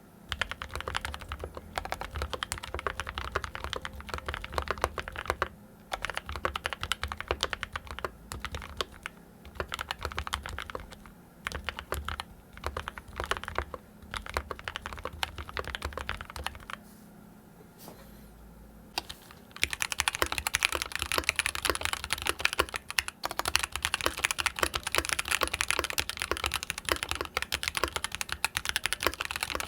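Fast, continuous typing on a Mode 65 mechanical keyboard fitted with stock Gateron Ink Black linear switches, in a brass-bottomed aluminium case with an FR4 plate. A short pause about two-thirds of the way in, after which the typing is louder.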